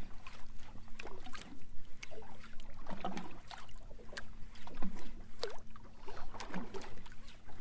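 Water slapping and splashing irregularly against the hull of a small drifting fishing boat, with a faint steady hum underneath.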